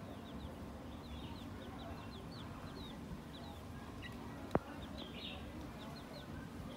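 Chicks peeping: a steady run of short, high peeps, each falling in pitch, several a second. A single sharp click about four and a half seconds in is the loudest sound.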